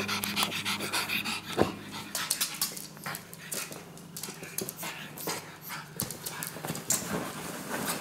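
Pug puppy panting as it moves about, with scattered light clicks and scuffs of its feet on a laminate floor.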